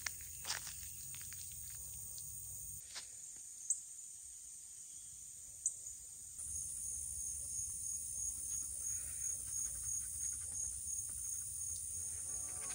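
Insects chirping in the evening as a steady high-pitched drone. From about six seconds in, a high chirp pulses at roughly three beats a second. Two short, sharp high chirps come a couple of seconds apart in the middle.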